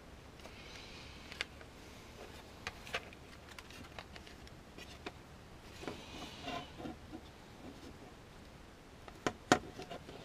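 Plastic telescope hand controller being handled and opened: scattered clicks and short rustles of its plastic case, cable and circuit board, with one sharper click about nine and a half seconds in.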